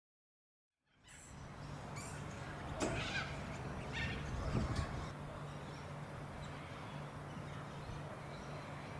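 Outdoor ambience with a steady low hum, fading in about a second in. A few short bird calls come between about two and five seconds in.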